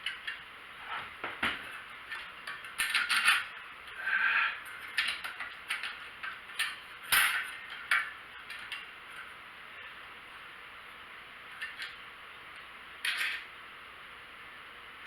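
Small hard parts clinking and rattling as they are handled: irregular clicks and knocks, busiest in the first half, a few more near the end.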